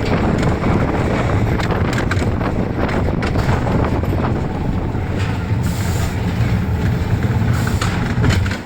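Roller coaster heard from a rider's seat: a steady low rumble and rapid clatter of the train's wheels on the track, with wind buffeting the microphone. The noise drops off sharply right at the end.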